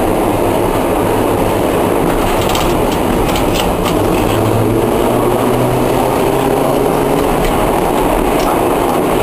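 Historic tram heard from inside its driver's cab as it moves along the track: a steady low traction-motor hum that swells about halfway through, with a few sharp clicks of the wheels passing over rail joints and points.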